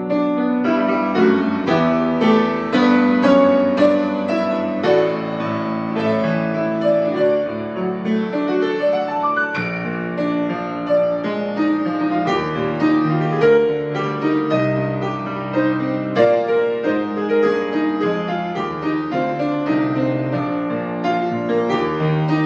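Piano playing a hymn arrangement: a continuous flow of chords and melody notes at an even, moderate loudness.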